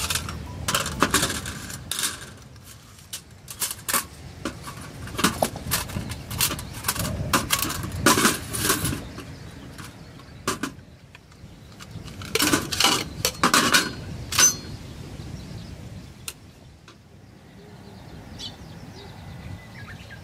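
Metal clinking and clattering in three clusters of sharp hits, as cookware or other metal camp gear is handled; fainter handling sounds follow near the end.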